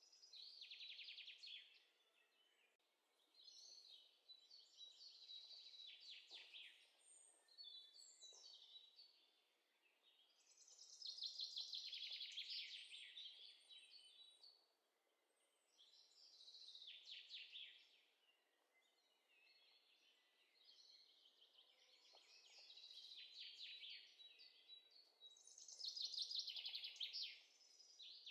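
Faint birdsong: a songbird singing phrases of rapid chirping trills, each one to three seconds long, with short pauses between them.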